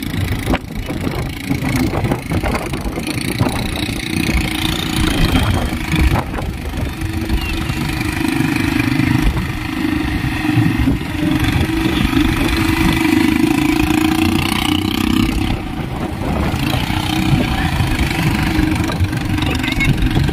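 Quad bike (ATV) engines running as several quads drive across sand. The engine note rises and falls, and it is at its strongest through the middle stretch.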